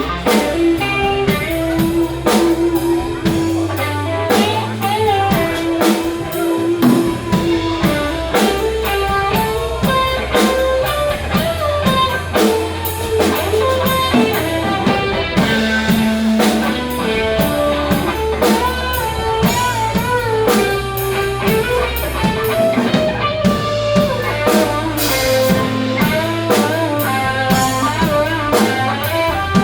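Rock band playing: guitar lines over a drum kit keeping a steady beat, with sustained low notes underneath.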